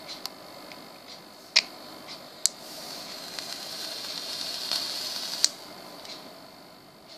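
Vape draw on an AGA-T3 triple-mesh-coil tank on a box mod: sharp clicks of the fire button, then a hiss of air and sizzling coil that swells over about three seconds and stops with another click.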